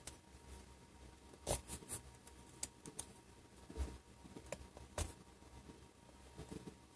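Faint, scattered light clicks and taps of hands handling a laptop's loosened LCD panel at its video connector.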